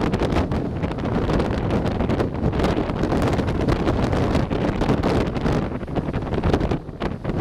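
Wind buffeting the microphone: a loud, rough rush with a strong low rumble that rises and falls in gusts, dipping briefly near the end.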